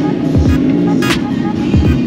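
Background music with a heavy beat: deep, falling bass hits and sharp snare strikes under curving synth tones.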